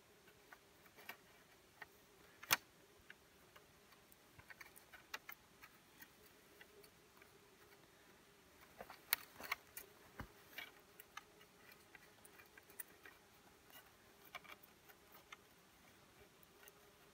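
Faint, scattered clicks and ticks of thin trapping wire being threaded through a grate of wooden sticks and tapping against them. There is a sharper click about two and a half seconds in and a cluster of clicks around nine to ten seconds.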